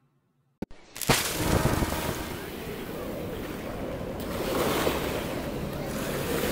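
Steady rushing water ambience like surf or being underwater, fading in about a second in after a moment of silence and a short click, swelling a little midway.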